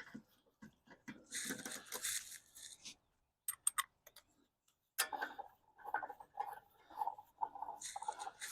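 Metal clicks, scraping and rattling as a van's road wheel is fitted back onto the hub and its wheel bolts are handled and started by hand. There is a scraping rustle about a second in, sharp clicks near the middle, and irregular knocks and rattles toward the end.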